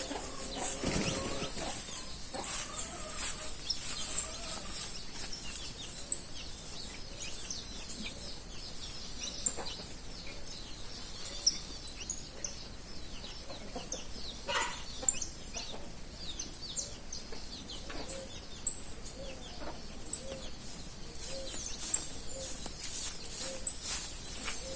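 Chickens clucking, with a small bird's short, high chirps repeating about once a second.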